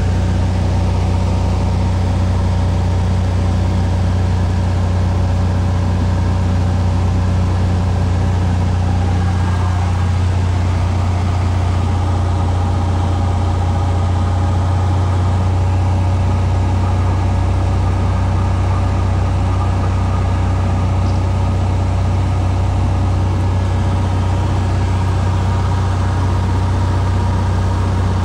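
Single-engine light plane's engine and propeller droning steadily in cruise, heard inside the cabin as a loud, even low hum. The tone shifts slightly about ten seconds in.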